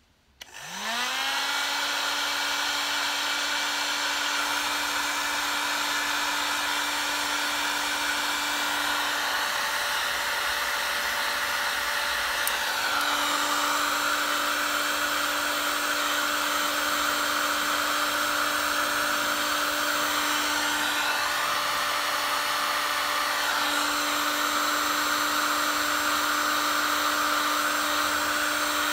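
Electric heat gun switched on, its fan motor spinning up to a steady hum under the rush of hot air as it shrinks heat-shrink sleeving onto a wire. The tone of the air shifts twice as the gun is moved.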